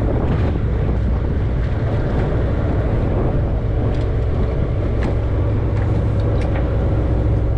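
A boat's engine running steadily: an even, low rumble.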